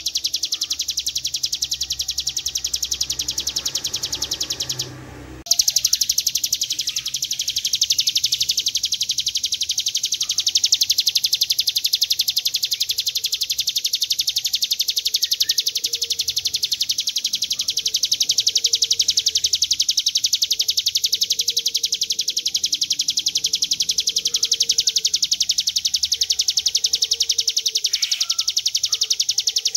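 Ciblek gunung (a prinia) singing a long, rapid buzzing trill (ngebren) that goes on almost without a break. The trill cuts out for about half a second about five seconds in.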